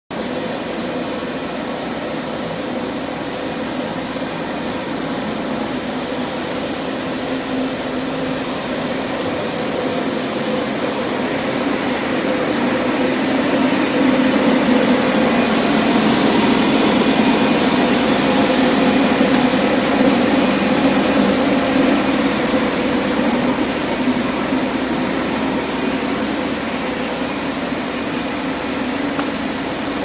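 Spiral vacuum-cleaner hose extrusion line running: a steady machinery hum with a few steady tones, growing louder and hissier through the middle, then easing off.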